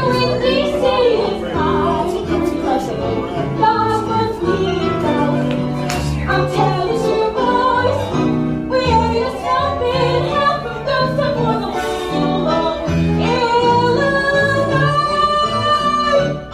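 A song playing: a singing voice over band accompaniment with a bass line that steps from note to note.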